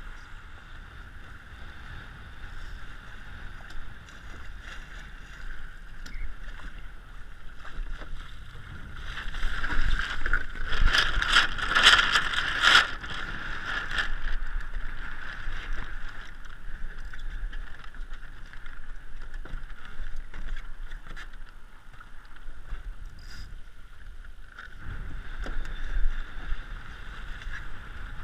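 Water rushing and slapping along an RS100 sailing dinghy's hull as it sails, with wind on the camera microphone. About ten seconds in there is a louder stretch of splashing with sharp knocks, lasting a few seconds.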